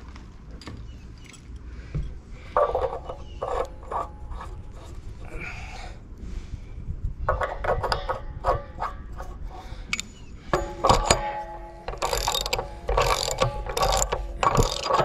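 Ratchet wrench clicking in repeated bursts while a Teflon-taped brass threaded adapter is run onto a water heater fitting. The clicking comes in short spells at first, then grows more frequent and louder in the second half.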